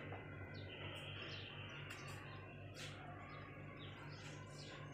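Birds chirping, with several short falling calls scattered through, over a steady low hum.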